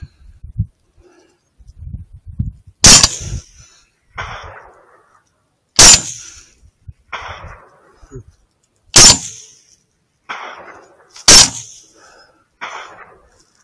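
Four rifle shots about three seconds apart, fired at a wolf on a mountain slope. Each crack is followed about a second and a half later by a fading echo off the mountainside.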